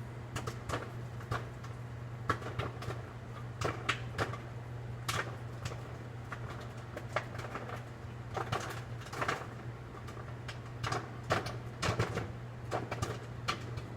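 Microwave oven running with a steady hum while a bag of popcorn pops inside it: irregular pops, coming more often in the second half.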